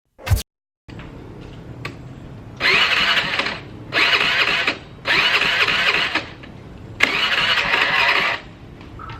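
A scooter's electric starter cranking in four separate tries of about a second each, the engine not catching: a scooter that won't start. A short sharp thump right at the start.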